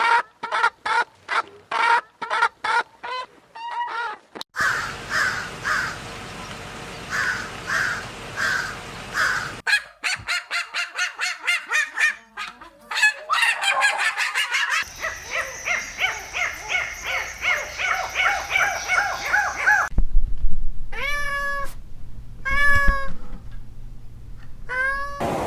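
Animal calls of several different kinds, one after another: fast runs of short repeated calls for the first two thirds, then a few longer calls near the end that each bend down in pitch.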